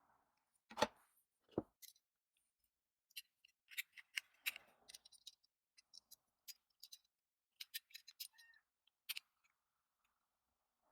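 Small hand-tool work: two knocks about a second in, then a scattered run of short, sharp clicks and ticks.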